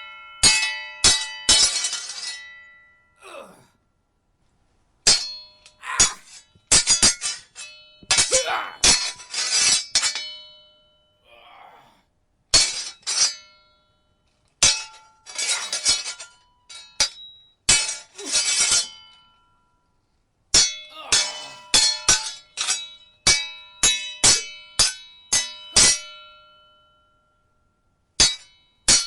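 Steel sword blades clashing in quick flurries of ringing clangs, each strike leaving a metallic ring, with short silent pauses between the exchanges.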